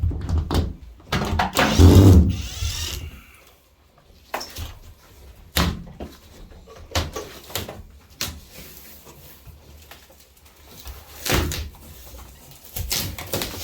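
Plasterboard ceiling being pulled and broken loose around its screws: irregular knocks and clatters, with a louder crunching scrape about one to three seconds in.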